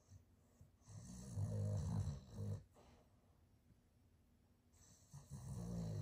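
Boston terrier snoring: two long, low snores, one starting about a second in and the next near the end.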